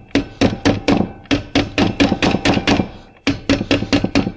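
Rubber mallet tapping a keyed part onto its shaft on a Vespa PK 50 XL2 engine, seating it over the woodruff key. Fast, even blows, about four a second, with a brief pause about three seconds in.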